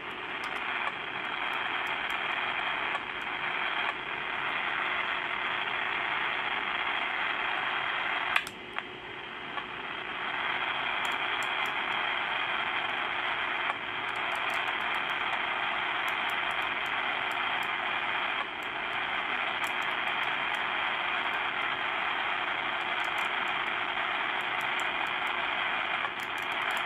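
uSDX (uSDR) shortwave transceiver receiving on the 40-metre band in single sideband, putting out a steady hiss of band noise while it is tuned, with no station heard. A sharp click with a brief drop in the hiss comes about 8 seconds in, and a smaller click near 14 seconds.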